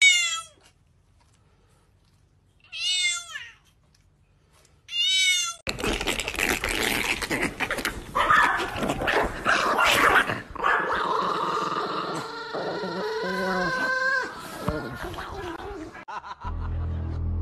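A house cat meows three times, a couple of seconds apart, while lying on its back with its belly held. A long stretch of dense, busy mixed sound follows, and music begins near the end.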